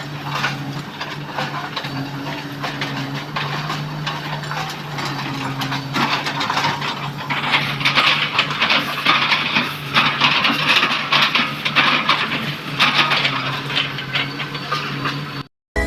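Komatsu PC200 excavator's diesel engine running steadily while its bucket chops an oil palm trunk, with dense crackling and splintering of the fibrous wood that grows heavier about halfway through. The sound cuts off abruptly near the end.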